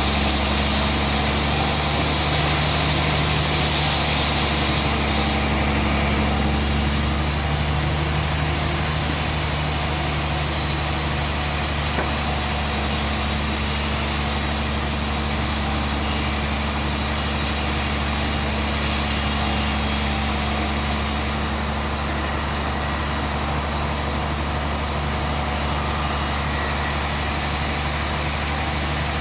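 An engine running steadily at an even speed, its pitch unchanging.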